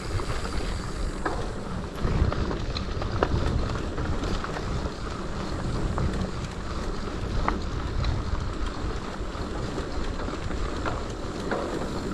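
Wind buffeting the microphone as a steady low rumble, over a mountain bike rolling along a rough trail, with scattered sharp clicks and rattles.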